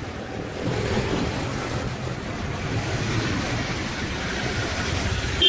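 Road traffic at a busy junction: a steady wash of engine and tyre noise from passing auto-rickshaws and cars.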